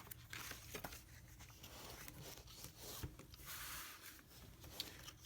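Faint rustling and swishing of paper as a perfect-bound book is handled and its pages turned, with a few light clicks.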